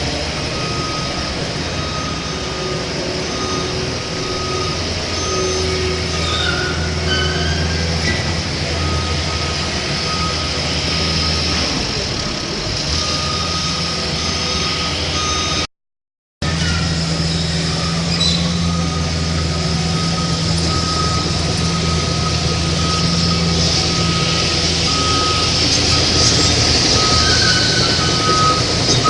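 Reversing beeper repeating about once a second over a steady low engine drone, with a high whine, from RC model construction trucks. The sound drops out for a moment about halfway through.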